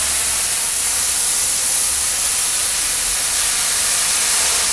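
Hot-water pressure washer (steam cleaner) spraying near-boiling water onto brick, a steady hiss, stripping graffiti paint that a chemical has loosened.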